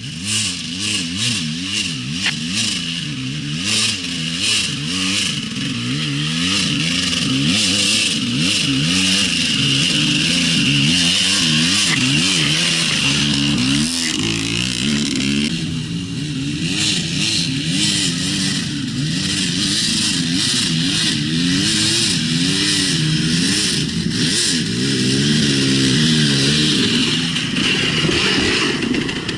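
Enduro dirt bike engine on a steep climb, revving up and down over and over as the rider works the throttle, with frequent clattering knocks over it.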